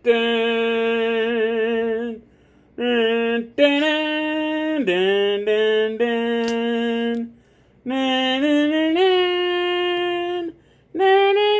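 A voice singing a slow melody of long held notes, wordless, each lasting a second or two, with short pauses between them and stepwise changes in pitch.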